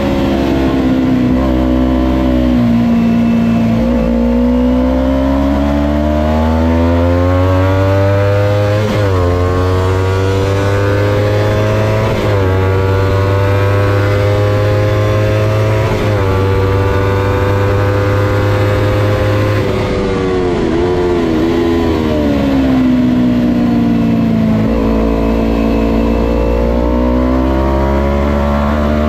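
Kawasaki Ninja 250 parallel-twin engine revving hard on track. It climbs in pitch through the gears, with three upshifts each dropping the revs. Later it falls away under braking with quick blips on the downshifts, then climbs again as the throttle opens.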